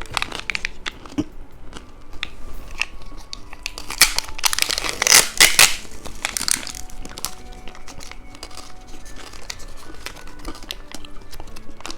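Plastic candy wrapper crinkling and being torn open, loudest about four to six seconds in, over soft background music.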